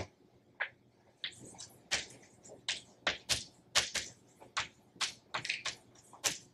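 Chalk writing on a blackboard: an uneven run of sharp taps and short scratches, several a second, as letters are struck onto the board. It starts about a second in.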